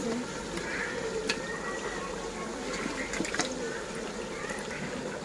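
Wet raw chicken pieces being handled in an aluminium bowl, with a few sharp knocks against the metal over a steady hiss.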